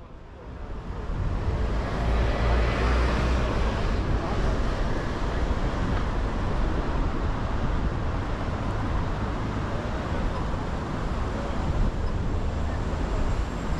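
Road traffic on a busy city street: vehicles passing with a low engine rumble and tyre noise. It swells up over the first couple of seconds, then holds steady.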